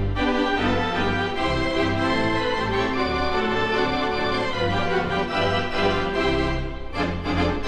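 Organ intro music: sustained chords over a moving bass line, with a brief dip in loudness about seven seconds in.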